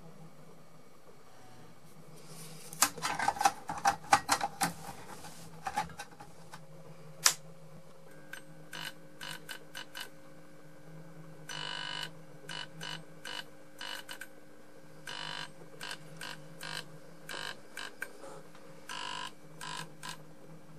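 Clicks and knocks from handling a fluorescent fitting, then a 20 W fluorescent tube fitting buzzing in short irregular bursts, two or three a second with some longer ones, over a steady low mains hum. The worn-out tube is flickering and struggling to stay lit.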